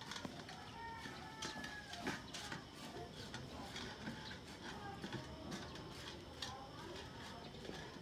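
Light metallic clinks and scrapes of a perforated metal skimmer against an aluminium pot and a steel plate while food is served, with faint bird chirps in the background.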